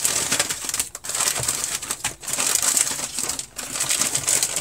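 Clear plastic zip-lock bag crinkling and rustling as hands rummage through the parts packed inside it, in several stretches broken by short pauses.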